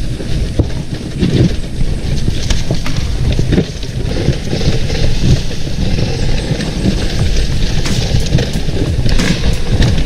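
Enduro dirt bike riding a trail: engine running with uneven, rising and falling loudness, scattered knocks and rattles, and heavy rumble from wind on the microphone.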